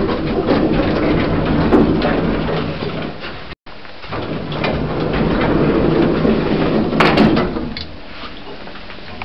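1980s Stannah passenger lift in operation: a steady low motor hum under a clattering, rattling car, with sharp clicks and knocks about seven seconds in.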